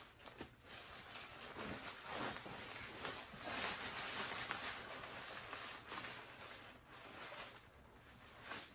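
Rustling of the prop's thin black fabric robe as it is handled and pulled about, louder through the middle of the stretch.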